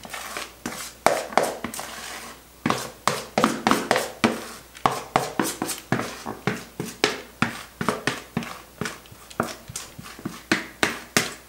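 A spatula scraping cake batter out of a plastic mixing bowl, in quick repeated strokes about two to three a second.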